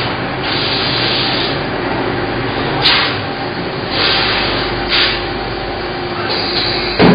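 Steady machine-shop noise with a low hum, broken by several short hissing surges spaced a second or so apart, and one sharp knock near the end.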